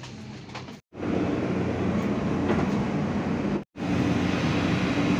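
Steady hum inside a jet airliner's cabin, then, after about a second, a louder steady roar of jet airliner and ramp noise, with a low drone under it, that breaks off once briefly near the end.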